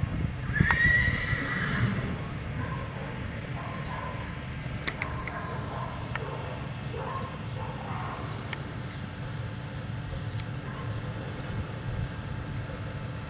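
A horse whinnies about half a second in, a high call lasting about a second, followed by fainter, lower wavering calls over the next several seconds, over a steady low rumble.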